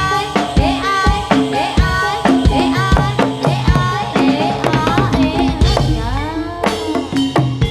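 Live Javanese traditional ensemble music driven by rapid hand-drum strokes from the kendang and ketipung, over a melody whose notes slide up and down in pitch.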